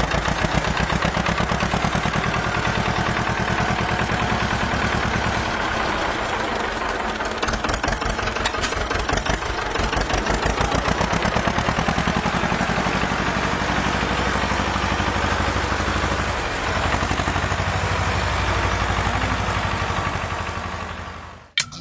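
A motor running steadily with a fast, even putter and a low hum, cutting off sharply just before the end.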